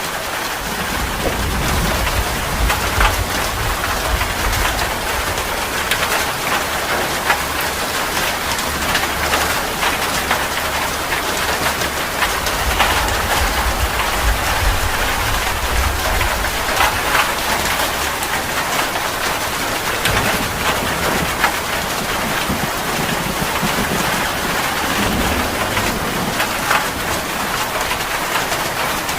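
Heavy rain pouring steadily, with many individual drops pattering close by. A low rumble of thunder rolls through the first half and returns briefly near the end.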